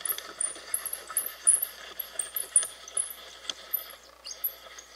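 Camera tripod being handled and readjusted: irregular clicks, knocks and light rattles, with many short, high chirps in the background.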